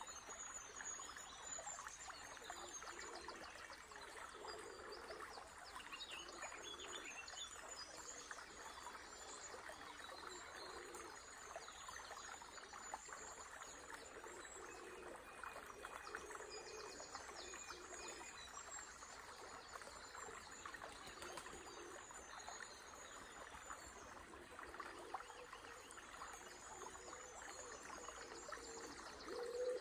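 A small river trickling and babbling steadily, with songbirds chirping and twittering faintly and on and off above it.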